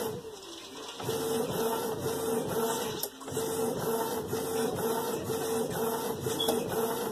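Canon inkjet printer printing, its print head carriage whirring back and forth in short repeated passes while the sheet feeds out. There is a brief pause about three seconds in.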